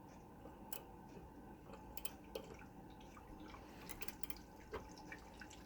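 Faint, irregular clicks from a 7/16 Pittsburgh Pro flex-head ratcheting combination wrench being worked to tighten a nut, a few scattered clicks a second at most over a low steady background.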